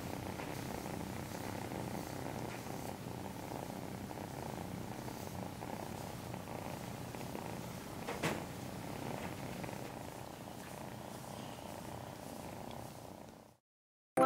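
Calico kitten purring steadily close up, with one short sharp sound about eight seconds in; the purring fades and stops just before the end.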